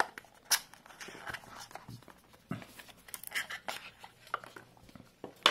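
Small white cardboard box being handled and pulled open by hand: scattered rustles and scrapes of paperboard with a few sharp taps, the loudest just before the end.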